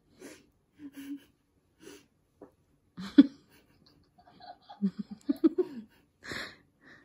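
Breathy laughter: short puffs of breath, then a run of quick giggles about five seconds in and a final breathy laugh near the end.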